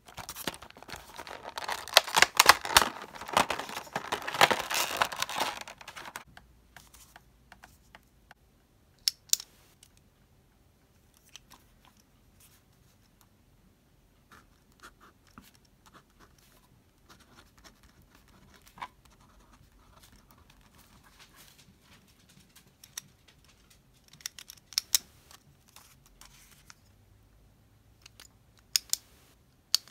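Crinkling and tearing of a pen set's packaging, a paper backing card with a clear plastic cover, loud and dense for about the first six seconds. After that it goes quiet apart from faint ballpoint-pen scratching on paper and a few sharp clicks as the pens are handled.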